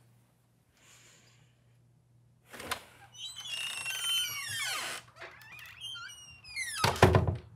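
A wooden front door being opened and shut: the latch clicks about two and a half seconds in, the hinges squeak as it swings, and it closes with a thud near the end, the loudest sound.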